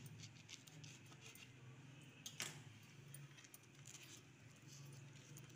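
Near silence with faint clicks and scrapes of a knife cutting through an egg-stuffed flatbread on a ceramic plate, one sharper tap about two and a half seconds in, over a faint steady low hum.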